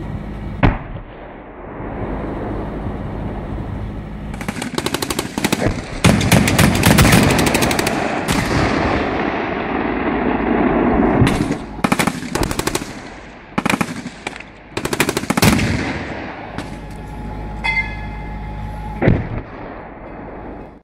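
Live fire from armoured vehicles' cannon and machine guns. A long stretch of rapid automatic fire comes about four to nine seconds in, then a string of single heavy shots, all over a steady low hum.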